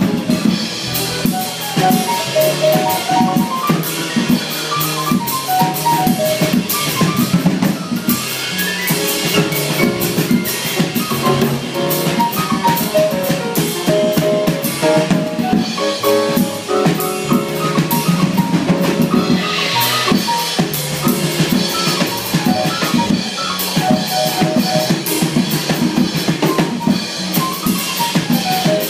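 Live jazz combo playing, with a drum kit going steadily under fast runs of melodic notes.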